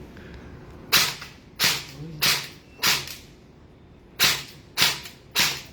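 Airsoft M4A1 carbine firing single shots: seven sharp cracks about two-thirds of a second apart, in a string of four and then, after a short pause, a string of three.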